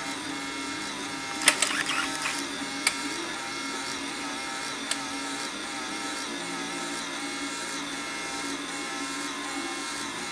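Built-in paper-strip printer of a VAG 1763 compression tester printing out the cylinder compression results: a steady whirr as the paper feeds, with a few sharp clicks in the first three seconds.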